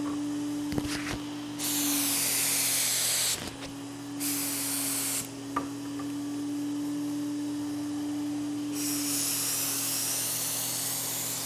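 Turbine-fed HVLP gravity-feed spray gun (Fuji T75G) hissing as it sprays lacquer in three passes: one of about two seconds, a short one, and a longer one near the end.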